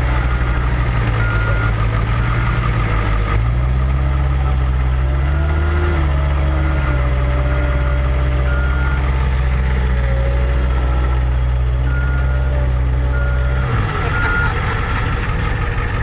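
Diesel engine of a CAT skid steer running steadily, with its backup alarm giving short beeps at uneven intervals. The engine note drops near the end.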